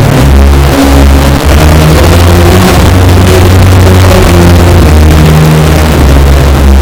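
Music with a deep bass line that moves from note to note, bass-boosted so hard that it is loud and distorted throughout.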